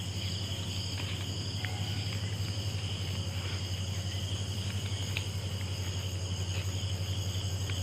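Night chorus of crickets and other insects, a steady high-pitched trilling that does not let up, over a steady low hum.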